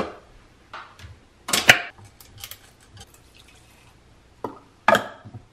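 Several sharp knocks and clatters of kitchen items being handled and set down on a countertop around a capsule coffee machine, the loudest cluster about a second and a half in.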